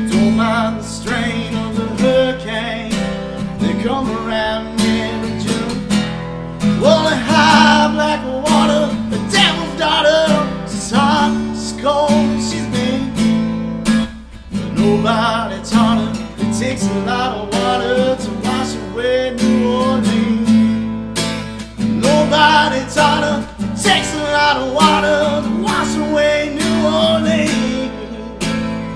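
Acoustic guitar strummed in a steady rhythm, with a man's voice singing over it in long phrases.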